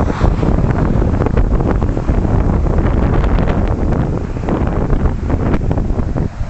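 Wind buffeting the microphone with a crackly rumble, over the steady low running of a heavy wrecker truck's diesel engine.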